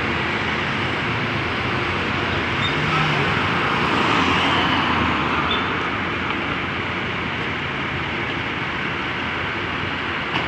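Coach buses driving past close by: a steady run of engine and tyre noise that swells about four seconds in as a bus goes by.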